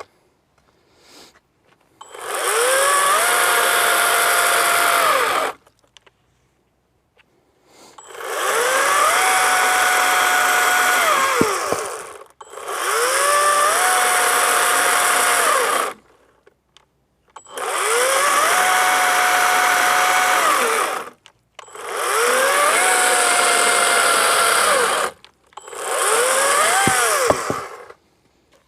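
Atlas cordless battery chainsaw cutting logs in six separate runs, each a few seconds long, with short quiet gaps between them. On each run the motor whine rises as it spins up, holds steady through the cut and winds down when released. The last run is the shortest, as the saw begins shutting off on a battery that still shows half charge.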